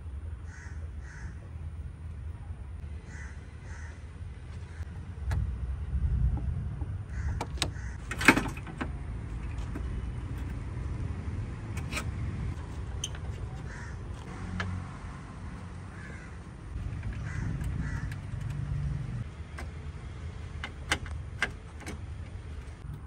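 Crows cawing repeatedly, over a low rumble. Sharp metallic clicks and knocks come from hand work on the car's radiator hose clamps and fittings, the loudest about eight seconds in.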